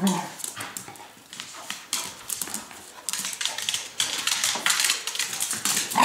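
Two dogs play-fighting on a tile floor: scuffling and a run of sharp claw clicks, with a short growl right at the start.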